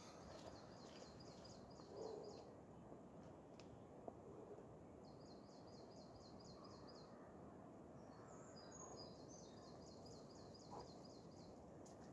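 A small songbird singing faintly three times, each phrase a quick run of high, evenly spaced notes, over a faint steady outdoor hiss.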